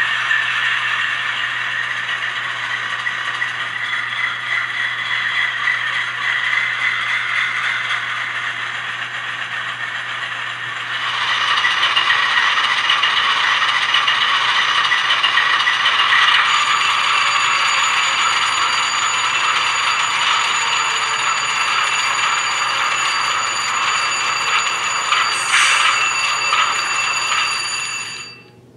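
ESU LokSound sound decoder in an HO-scale ScaleTrains AC4400CW, playing the GE diesel prime mover through the model's small speaker after startup. The engine sound runs steadily, grows louder about eleven seconds in, and a high whine joins about five seconds later, with a short hiss near the end.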